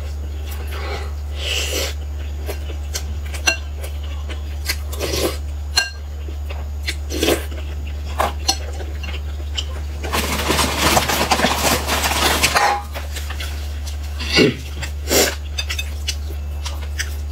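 Close-miked eating sounds: chewing and tearing of crisp pan-fried stuffed pies (xianbing), with scattered clicks of a spoon against a glass bowl, over a steady low hum. A louder, denser run of noise comes about ten seconds in, and two sharper bursts a few seconds later.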